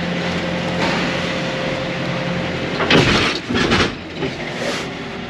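Steady hum of an idling diesel semi-truck, then about three seconds in a loud clatter and rustle lasting about a second.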